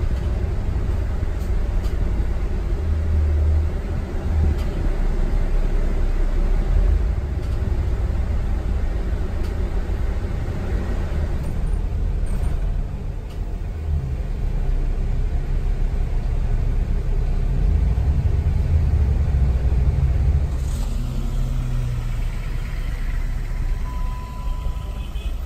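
Road noise from a car being driven, a steady deep rumble of engine and tyres. Near the end a steady electronic beep sounds.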